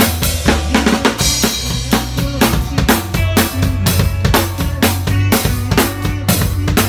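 Live band playing a song, with a drum kit loud and close (kick, snare and cymbals on a steady beat) over bass guitar and keyboard. A cymbal crash rings out about a second in.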